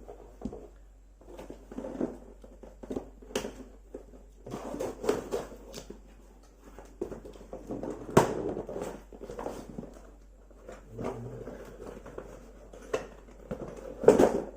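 Handling noises from unpacking a metal detector: irregular rustling and clicking of packaging and parts, with sharp knocks about three seconds in, about eight seconds in and near the end.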